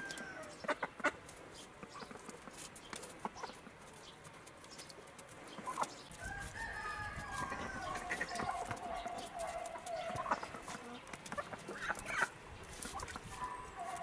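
Hen decoy ducks of the domestic mallard type quacking, with a long falling series of calls in the middle and shorter calls near the end, over scattered clicks and crunches.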